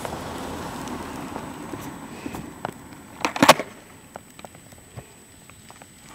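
Skateboard's urethane wheels rolling over rough asphalt with a gritty rumble for the first couple of seconds. A sharp, short clatter follows a little past halfway, the loudest sound. Then come a few faint scattered ticks.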